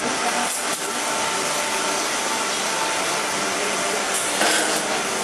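Steady hiss of the water jets of an automatic coach-washing plant spraying the underframe and bogies of a slowly passing railway coach, with a brief louder rush about four and a half seconds in.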